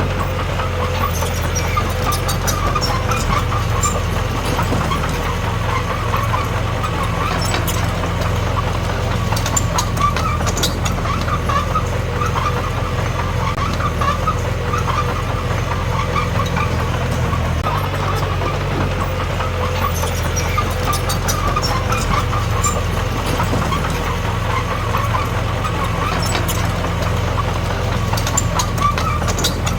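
Heavy diesel engine of earthmoving machinery running steadily under load, with scattered sharp metallic clicks and clanks throughout.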